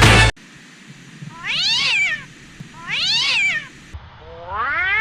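A cat meowing three times, about a second apart, each meow rising and then falling in pitch; the third is longer and lower.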